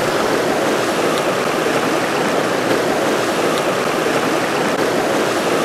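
Steady rush of a shallow, stony river flowing past.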